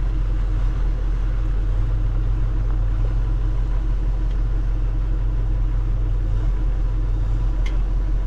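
Steady low engine rumble at an even pitch, unchanging throughout.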